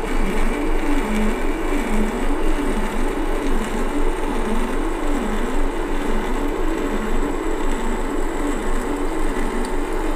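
Metal lathe running with the carriage on power feed during an internal threading pass: a steady motor-and-gear hum with a whine that wavers up and down in pitch about once a second.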